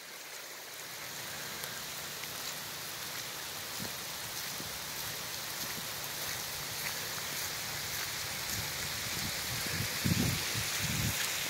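Steady rain falling, a continuous hiss of drops striking surfaces, with a few short low muffled bumps about ten seconds in.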